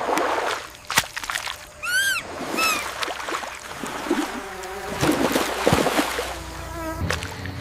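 Water sloshing and splashing in bursts, with two short arched chirps about two seconds in.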